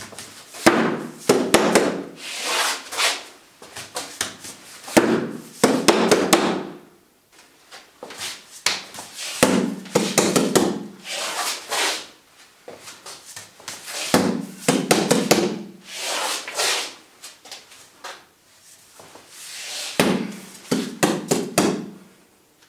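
Hand strikes on a Wing Chun wall-bag dummy, a wall-mounted board of padded wall bags with a movable dummy arm: quick runs of thuds and knocks as the arm is deflected and the pads are hit with backfists and rapid chain punches. The blows come in about five flurries of a few seconds each, with short pauses between.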